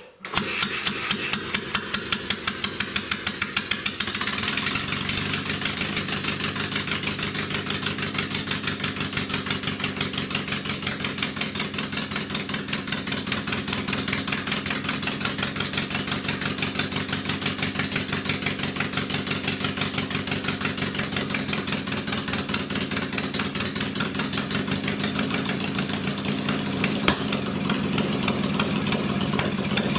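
Homemade motorcycle's small engine catching and running: slow, separate exhaust beats for the first few seconds, then picking up speed about four seconds in and running on at a steady, even beat.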